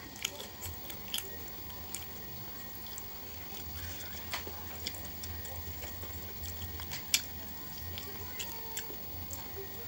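A child chewing fried chicken and rice, eating by hand, with scattered sharp mouth clicks and smacks; the loudest comes about seven seconds in.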